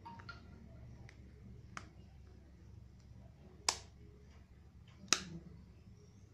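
A few sharp clicks and taps from a smartphone in a clear plastic case being handled, the two loudest about three and a half and five seconds in, over a faint low hum.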